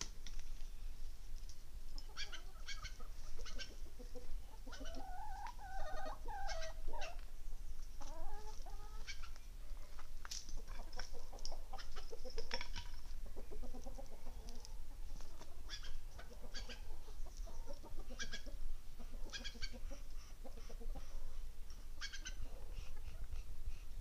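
A flock of domestic chickens, rooster and hens, clucking and calling, with many short, sharp high notes throughout and one longer drawn-out call about five to seven seconds in.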